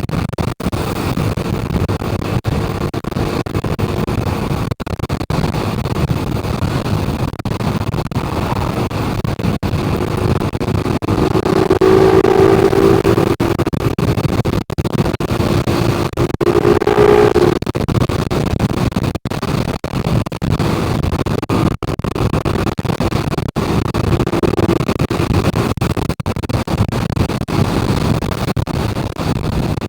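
Steady low rumble of a motor vehicle, with a humming tone that swells about 11 seconds in and again around 17 seconds.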